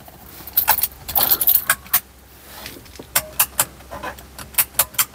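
Sharp mechanical clicks of a foot-operated high-beam dimmer switch being worked, with some rattling clatter about a second in and quick runs of two or three clicks in the second half. The switch is being tested after being grounded to the body, and the high beam does not come on.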